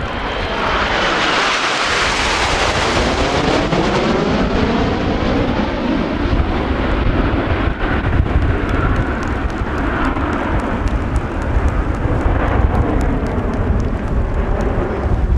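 Jet aircraft flying past at an air show, a loud rushing engine noise that is strongest about two seconds in. A sweeping sound then falls slowly in pitch as it moves away.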